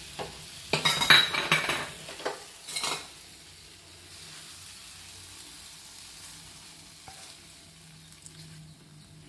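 A spatula scraping and knocking against a non-stick frying pan while thick halwa is stirred and scraped out. There is a cluster of scrapes and clatters in the first three seconds, then only faint, occasional scraping.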